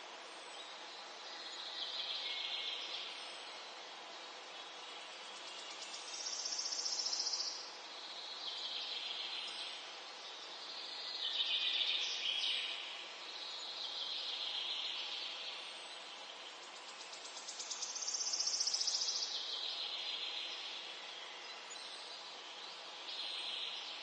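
Outdoor ambience: insects chirping in repeated buzzy bursts of about two seconds, every few seconds, over a steady hiss.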